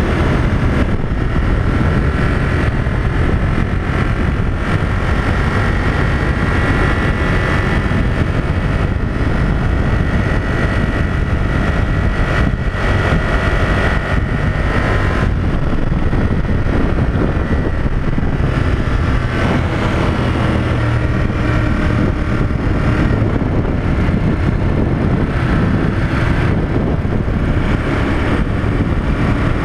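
Ducati Monster 1200 S's 1198 cc Testastretta L-twin engine running at a steady cruise, with wind rushing past the bike, on a motorcycle still in its break-in period.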